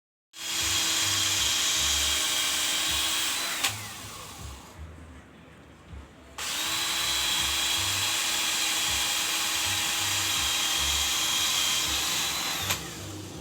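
Power drill running in two long steady bursts, about three seconds and then about six seconds, each ending with a click and the motor winding down; it is being used to fit the curtain-rod brackets, tightening their centre bolt.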